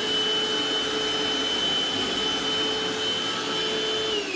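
Eureka Optima upright vacuum cleaner's motor running at full speed with a steady high whine, then switched off near the end, its pitch falling as it winds down.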